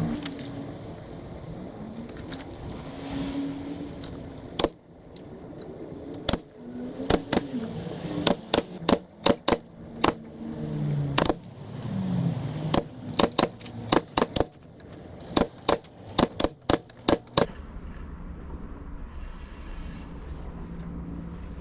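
Many sharp clicks and knocks in quick, irregular succession, giving way near the end to a steady low hum.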